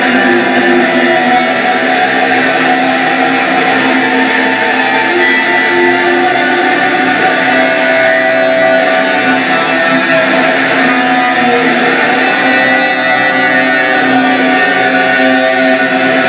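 A live band playing, with strummed guitar to the fore over keyboards.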